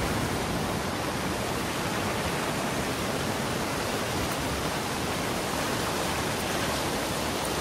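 Steady rushing of fast-flowing muddy floodwater in a swollen, nearly overflowing river channel, with heavy rain falling.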